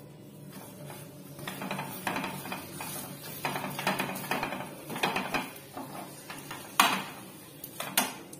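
A wooden spatula and a steel spoon scraping and pressing a flatbread around a non-stick frying pan, spreading oil over it in a run of quick scrapes. Two sharp knocks of a utensil against the pan come near the end.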